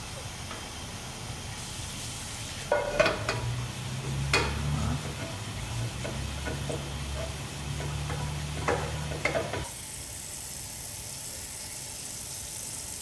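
Food sizzling in a frying pan, with a few sharp clinks and scrapes of a utensil against the pan and a low hum through the middle stretch.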